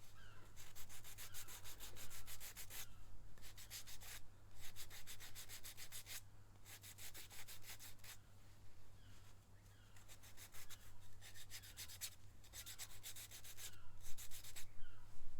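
Hand sanding of a 3D-printed plastic cosplay belt buckle: quick back-and-forth strokes of sandpaper rasping over the plastic, in runs of a few seconds with short pauses between them.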